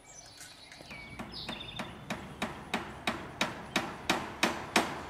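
A hammer striking steadily, about three blows a second and growing louder, as wire mesh is fastened to the wooden frame of a chicken run.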